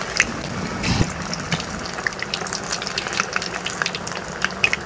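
Battered lòng tong fish frying in hot cooking oil in a pan: a steady sizzle with many scattered crackles and pops. A dull knock sounds about a second in.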